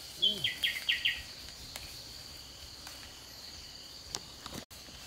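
Steady high-pitched drone of insects, with a quick run of four or five sharp bird chirps near the start.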